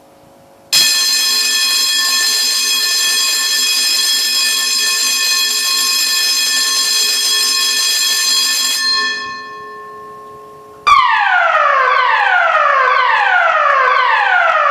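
Fire alarm system sounding evacuation tones through the building's loudspeakers. A loud steady alarm tone holds for about eight seconds and then dies away with echo. A couple of seconds later a repeating falling tone starts, sweeping down about once a second.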